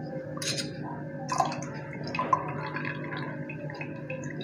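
Sugar syrup dripping and splashing back into the pan as soft chhena balls are lifted out on a spoon and squeezed, with a few short splashes over a steady low hum.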